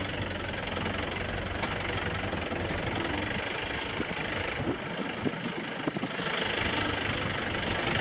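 Engine and road noise heard from inside a jeep taxi driving on a bumpy dirt forest track, with scattered knocks and rattles as it jolts. The low engine hum dips about five seconds in and picks up again just after six.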